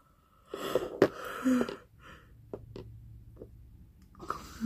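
A woman yawning twice. The first is a long breathy yawn with a short voiced note. After a few faint clicks, a second yawn near the end finishes in a voice sliding down in pitch.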